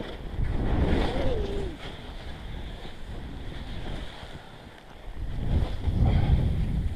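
Wind buffeting the microphone of a skier's action camera as he skis down through powder snow, a low rumble that swells about half a second in and again near the end.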